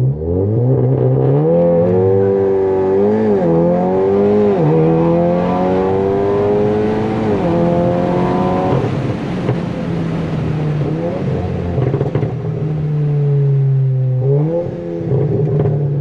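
Stage 2 VW Golf 7.5 R's turbocharged 2.0-litre four-cylinder, with a full aftermarket exhaust, heard from inside the cabin under hard launch acceleration. The revs climb fast through four quick DSG upshifts, each dropping the pitch. About nine seconds in it lifts off and cruises at steady revs, then pulls hard again near the end.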